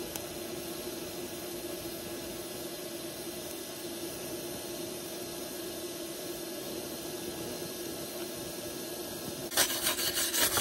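Tooliom TL-200T high-frequency TIG welder's arc burning on steel: a steady soft hiss with a constant hum underneath. About nine and a half seconds in the arc stops and loud, rough rubbing and scraping takes over.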